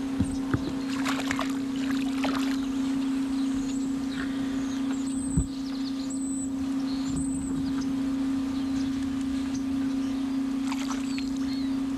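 Steady hum of the bass boat's electric trolling motor, with a few sharp knocks against the hull. About halfway through come three short, high chirps.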